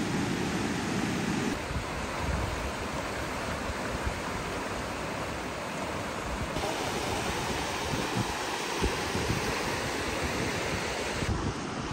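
Wind blowing across the microphone outdoors, a steady rushing noise with low gusty buffeting. The noise changes abruptly three times, at edit cuts.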